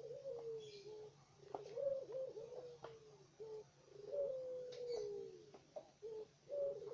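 Puter dove (a turtle dove) cooing: a run of repeated short coos that glide slightly down in pitch, over a steady low hum.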